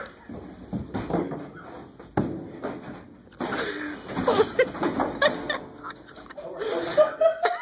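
Ceiling fan spinning on a loose, sagging mount, its blades hitting and knocking down suspended ceiling tiles: a run of irregular knocks and clatter. A person's voice joins in about halfway through.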